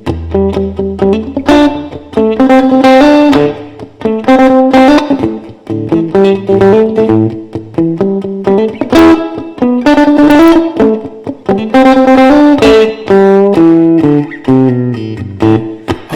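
Fender Stratocaster electric guitar playing a blues riff, picked single notes and short chords, with a low note ringing through the first second or so.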